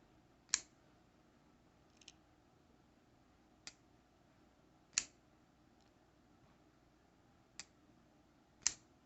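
Artisan Cutlery small Archaeo liner-lock folding knife being flicked open and snapped shut, giving about six sharp metallic clicks at uneven intervals as the blade locks and closes. The loudest clicks come about half a second in, around the middle and just before the end.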